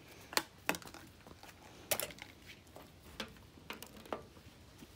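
Scattered light clicks and taps of small plastic toys being handled, about seven in all, the sharpest about two seconds in.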